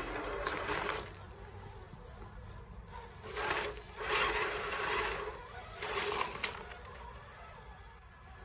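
Small electric RC rock crawler climbing a loose rocky slope, its tyres scrabbling and crunching on gravel and dirt in four uneven bursts.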